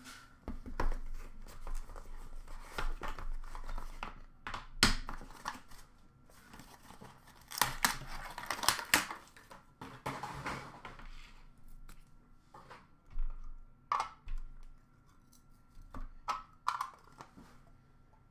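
Hands opening and handling a trading card box's cardboard and plastic packaging: irregular rustling, scraping and sharp clicks, with a longer stretch of crinkling about eight seconds in.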